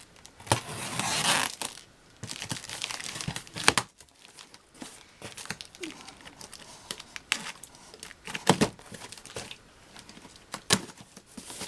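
Packing material being unwrapped and handled: crinkling and tearing in irregular bursts, with several sharp knocks as parts are handled.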